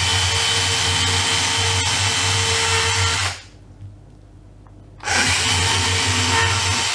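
Bosch EasyCut 12 cordless nanoblade saw running as it cuts through a lime. It stops about three seconds in, then starts again about two seconds later and cuts on until just before the end.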